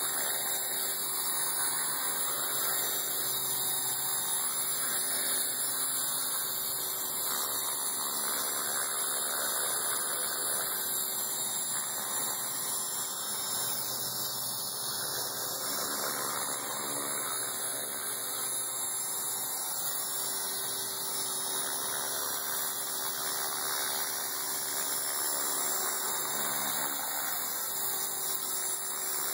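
Align T-Rex 450 Sport electric RC helicopter hovering: a steady high-pitched whine from its electric motor and drive, over the even rush of the spinning rotor blades.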